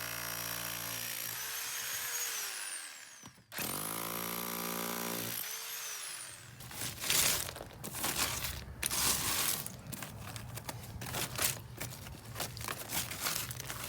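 Jackhammer breaking into a liquid limestone slab: two short runs that each wind down with falling pitch when released, then a longer stretch of choppy, irregular hammering as the slab is broken up.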